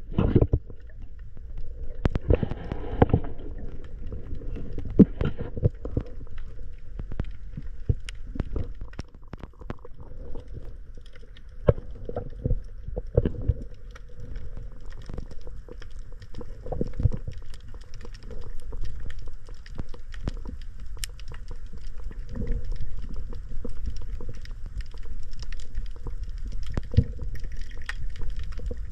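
Underwater sound picked up by a diver's camera: a steady low muffled rumble with gurgling, and many scattered sharp clicks and ticks throughout.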